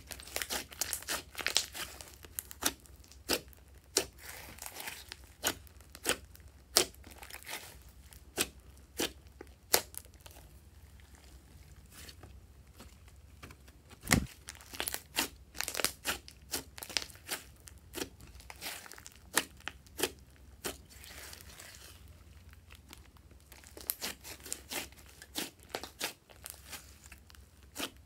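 Glossy slime being worked by hand, with irregular sharp clicks and crackling pops that come in clusters and ease off briefly twice.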